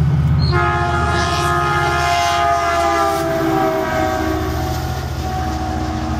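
Metrolink diesel locomotive passing close by, its engine running with a low rumble, and its air horn sounding one long chord that starts about half a second in and drops slightly in pitch as the train goes by.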